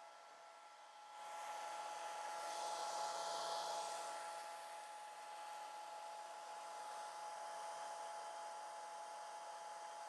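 Handheld hair dryer running steadily, a rush of air with a steady whine, drying wet watercolor paint. It gets louder about a second in as it is brought down close over the paper, then holds steady.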